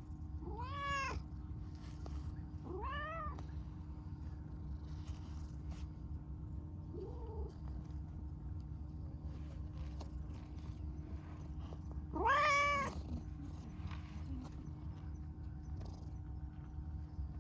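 Dilute calico cat meowing: four separate meows, each rising and then falling in pitch, one of them faint and the loudest about twelve seconds in, over a steady low hum.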